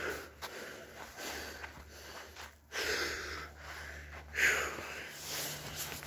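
A person breathing in uneven, noisy puffs, loudest about four and a half seconds in.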